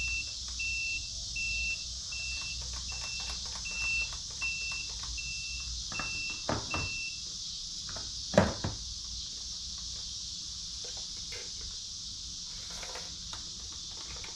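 The Aquacraft Mini Gator Tours RC airboat's electronics beeping on being powered up from a Traxxas NiMH battery: short, high single-pitch beeps about twice a second that stop after about seven seconds. Handling clicks follow, with one sharp knock about eight seconds in.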